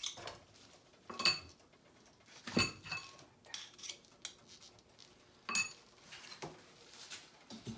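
Metal utensil clinking against a cooking pot and butter dish as butter is scooped into the pot: about six sharp, irregularly spaced clinks, each with a brief metallic ring.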